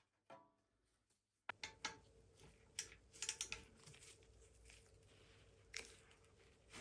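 Faint clicks and taps of hand tools on metal parts, starting about a second and a half in over a faint steady hum, as a front suspension hub assembly is stripped down.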